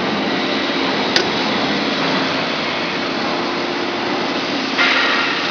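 Vacuum membrane press machinery running with a steady whirring hum and hiss. A single sharp click comes about a second in, and a louder hiss joins near the end.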